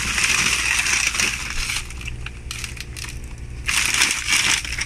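Plastic bags of frozen whole fish being handled and shifted in a chest freezer: stiff plastic crinkling and frozen fish scraping and knocking together, louder near the start and again near the end, over a steady low hum.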